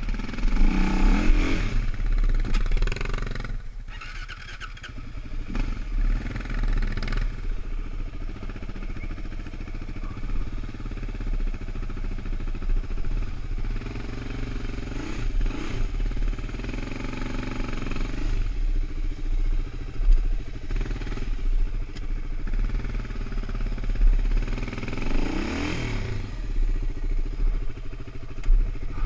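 Suzuki LT-Z400 quad's single-cylinder four-stroke engine running at low speed on a rough trail, the revs rising and falling several times as the throttle is worked, most sharply about a second in and again near the end.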